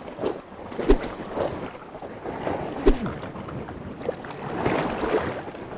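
Rough sea surging and washing against the rocks, with wind buffeting the microphone and two sharp knocks about one and three seconds in.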